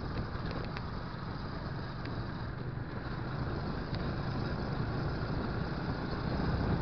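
Motorcycle engine running steadily while riding, heard from a handlebar-mounted camera with road and wind noise; it grows a little louder near the end.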